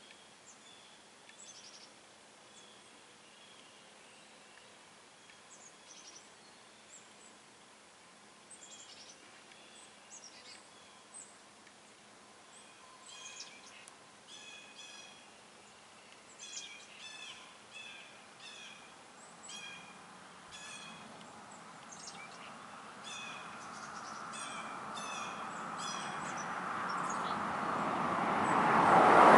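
Songbirds chirping in repeated short series over faint outdoor background. In the last several seconds a passing vehicle grows steadily louder until it is the loudest sound.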